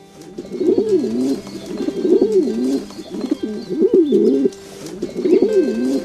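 A bird cooing: four rolling, wavering low coos, about one every one and a half seconds.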